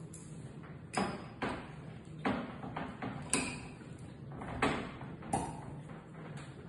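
Handling clicks and knocks of a wine bottle being opened with a corkscrew: about six sharp, separate knocks spread over the few seconds as the corkscrew is worked into and out of the cork.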